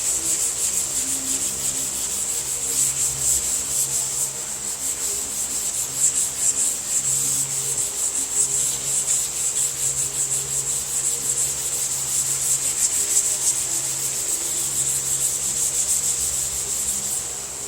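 Sandpaper on a soft sanding block rubbed by hand in quick back-and-forth strokes over a car body panel, a continuous scratchy rasp that stops near the end. This is fine sanding to remove the scratches from coarser grits before recoating.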